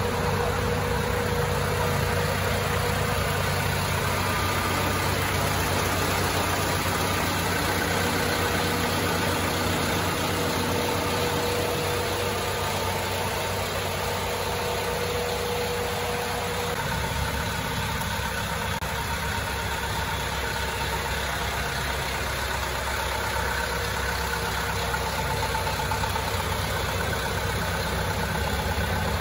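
Mitsubishi Canter truck's diesel engine idling steadily with the newly fitted air conditioning running. The sound shifts slightly a little past halfway.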